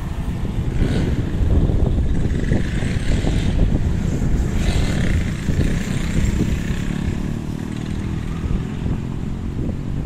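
Strong wind buffeting the microphone in a dense, fluttering low rumble, with street traffic passing, loudest in the first half.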